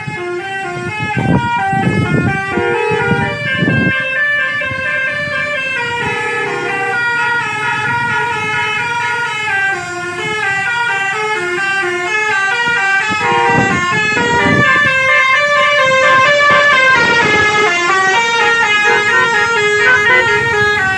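Bus 'telolet' horns: multi-tone air horns playing a fast melody of short notes that step up and down in pitch, repeated over and over. A low rumble sits under the tune near the start and again about two-thirds of the way through.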